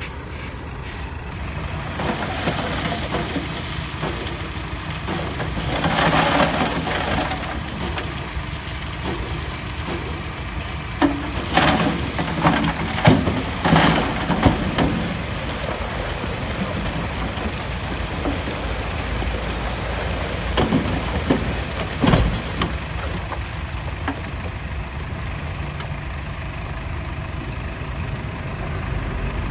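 Heavy diesel earthmoving machinery, bulldozer and dump trucks, running steadily. Louder noise swells in about six seconds in, a cluster of sharp loud clanks comes between about eleven and fifteen seconds, and one more comes around twenty-two seconds.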